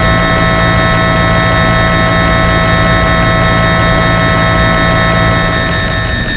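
Harsh noise music: a loud, dense wall of hiss and rumble with many steady high electronic tones held under it. Near the end the low hum drops out and it gets slightly quieter.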